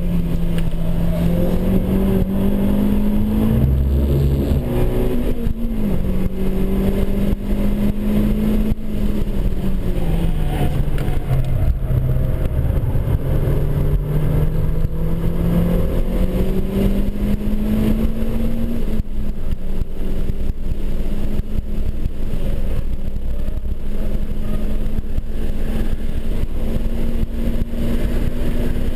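Renaultsport Clio Cup 200's 2.0-litre four-cylinder engine heard from inside the cabin, running hard at high revs over steady road and wind noise. Its pitch climbs, drops sharply about six seconds in, sags for a few seconds in the middle, then holds high and steady.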